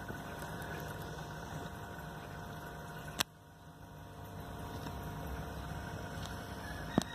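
Steady low hum of aquarium filter equipment with a few thin steady tones. A sharp click about three seconds in, after which the hum drops quieter and slowly returns, and another click near the end.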